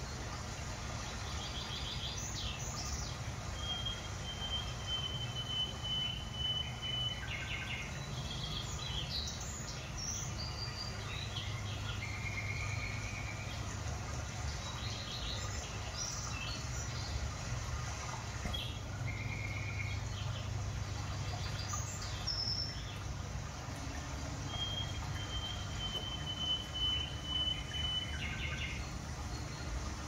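Small songbirds chirping and calling at intervals, with two long, high, even trilled notes, one a few seconds in and one near the end, over a steady low hum.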